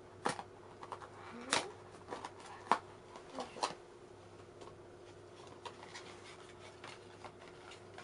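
Scattered light clicks, taps and rustles of plastic parts and packaging being handled while a cordless stick vacuum is unpacked and assembled, the sharpest clicks in the first four seconds, over a faint steady hum.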